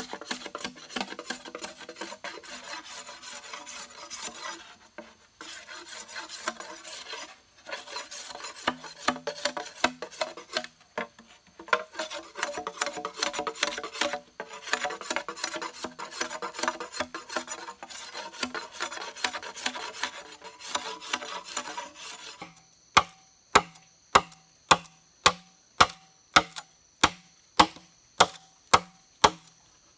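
Machete blade scraping the outer skin off a bamboo culm, in fast repeated rasping strokes with a few short pauses. About 23 seconds in it gives way to sharp, evenly spaced machete chops into a bamboo culm, about two a second.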